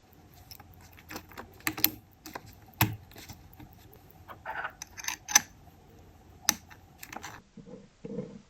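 Irregular sharp clicks and light taps of small hard parts being handled in watch work, over a faint steady hum. A few softer, duller knocks come near the end.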